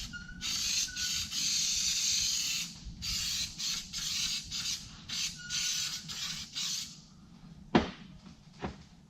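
Aerosol can of spray adhesive hissing in a run of short bursts, laying glue for carpet. Two sharp knocks follow near the end.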